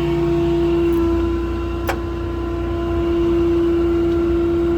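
A 6.7 Cummins diesel running with the PTO engaged, a steady whine from the PTO-driven hydraulic pump over the engine rumble. A single sharp click comes about two seconds in.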